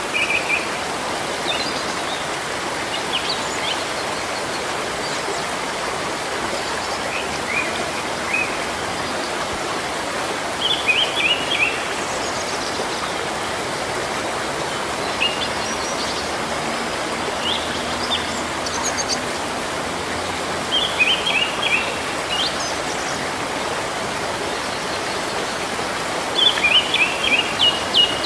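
Steady rain falling on tropical foliage, a continuous even hiss. A bird calls over it every few seconds in short clusters of rapid chirps, loudest near the end.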